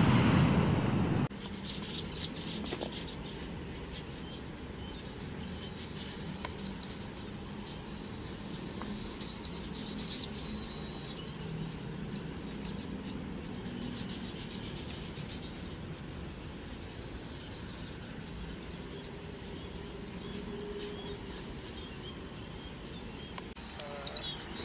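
A loud aircraft-engine sound cuts off abruptly about a second in. It gives way to steady outdoor ambience of insects chirring, with occasional bird chirps.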